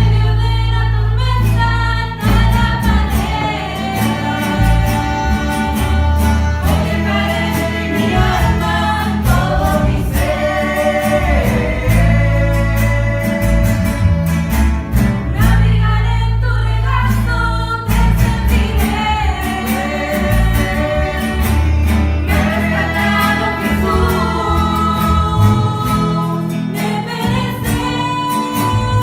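A Christian worship song: sung vocals, with a choir-like backing, over guitar and bass.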